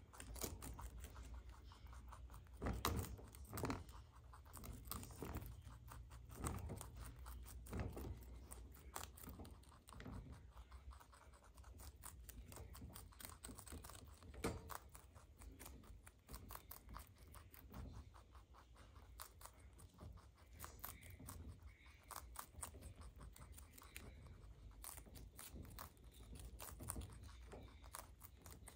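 Baby rabbits chewing cabbage leaves: quick, crisp crunching and small tearing clicks, with a few louder bites now and then.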